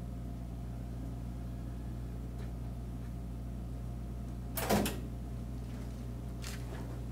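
Steady low hum, with one short clunk about two-thirds of the way in as the PPE vending locker releases a drawer for the item just issued.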